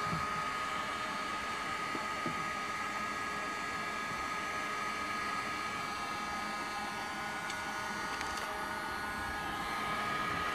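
Handheld electric heat gun running steadily: an even blowing whir with a steady whine. It is heating a plexiglass (acrylic) sheet to soften it for bending.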